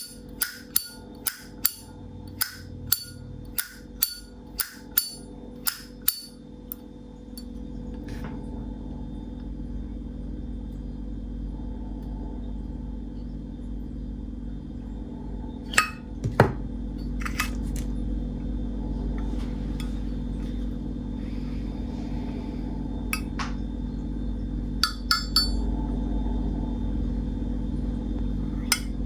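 A 1978 brass Zippo lighter's lid clicking open and snapping shut about twice a second for the first six seconds, then a few scattered clicks over a low steady hum. This is the lighter's original, unrepaired factory click.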